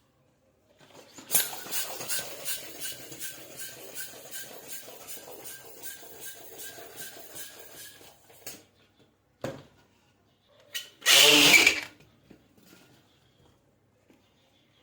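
A balloon being inflated with a hand pump: a fast, even series of pump strokes, about four a second, for some six seconds. Then a few clicks and a sharp snap, and a loud burst of rushing noise lasting under a second.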